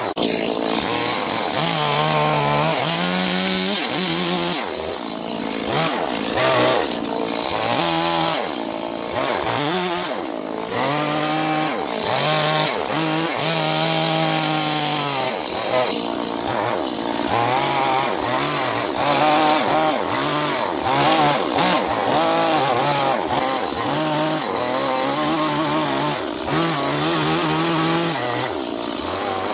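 Stihl two-stroke chainsaw cutting into a birch log, its engine revving up and easing off again and again as the chain bites into the wood.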